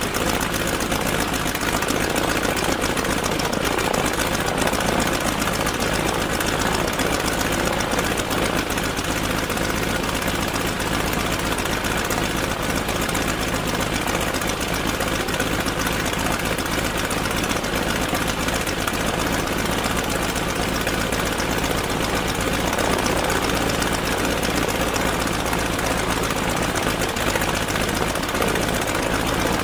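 Stearman biplane's radial engine idling steadily on the ground, an even, unchanging run.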